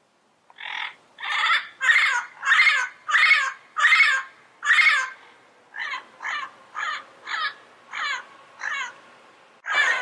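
Yellow-headed amazon parrot calling in a rapid series: about seven loud calls in quick succession, then six shorter, quieter ones, and a louder, longer outburst begins near the end.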